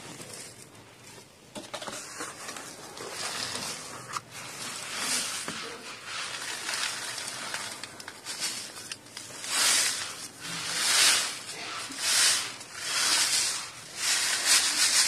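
Dry red dirt pouring into a plastic tub with a soft hiss, then a round metal mesh sieve being shaken, the dirt rushing across the mesh in loud swells about once a second over the last few seconds.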